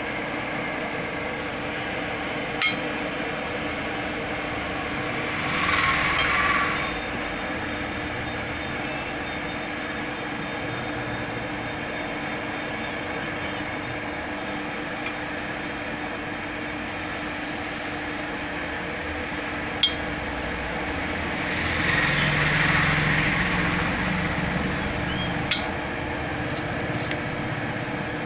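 Steady hum and rush of a forced-air forge fire heating a billhook blade for tempering, swelling louder twice, with a few single sharp metallic clinks.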